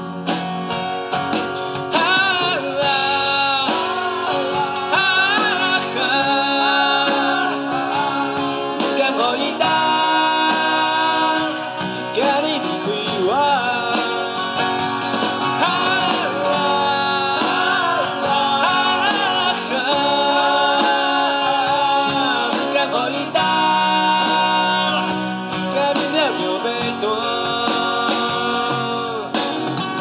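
Live acoustic music: a man sings with a strained, full voice over two acoustic guitars.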